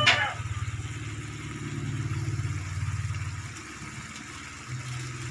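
A brief click at the start, then a low, steady rumble pulsing rapidly like an idling engine. It dips about three and a half seconds in and returns near the end.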